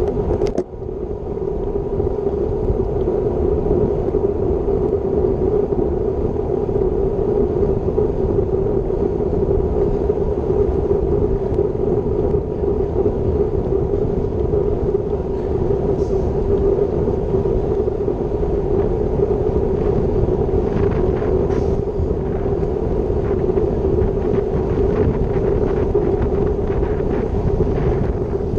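Steady wind rush and rumble on a bike-mounted action camera's microphone while riding a road bike at about 32–36 km/h, with a brief dip about half a second in.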